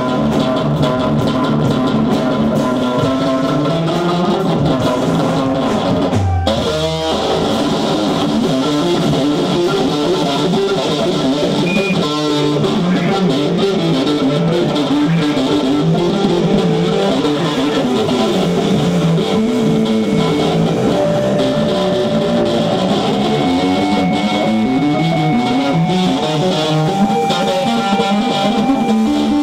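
Blues-rock band playing, electric guitar to the fore over bass, with a short break about six seconds in.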